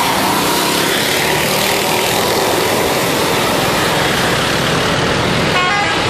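Tour bus passing close, with loud steady road noise. Near the end a multi-tone 'telolet' bus horn sounds a quick run of short notes.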